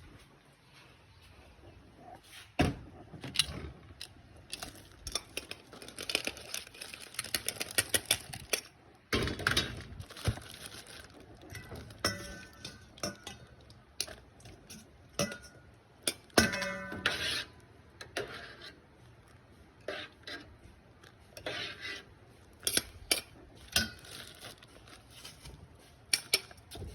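Dishes and metal utensils clinking and knocking over and over, as bowls, spoons and ladles are handled around noodle soup.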